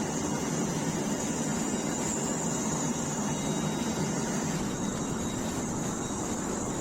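Metal-melting furnace's burner and blower running with a steady rushing noise.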